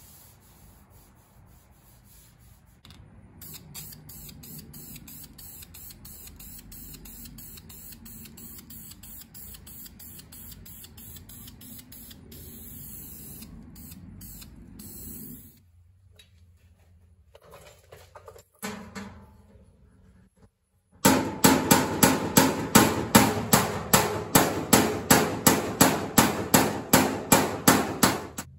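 Aerosol spray can hissing steadily for about twelve seconds as it is sprayed onto a steel body panel. After a pause, rapid hammer blows on sheet steel follow, about four a second, the loudest sound here.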